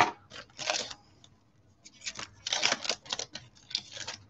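A foil trading-card pack and its cards being handled, crinkling and rustling in short irregular bursts.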